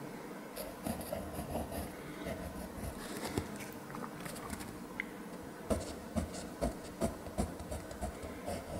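Pentel Graph Gear 1000 mechanical pencil scratching on sketchbook paper in short, quick sketching strokes. A few sharper, louder strokes come in the second half.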